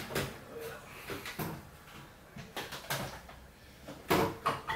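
Handling noise as a work lamp is moved and adjusted over the bench: a few scattered knocks and rustles, the loudest near the end.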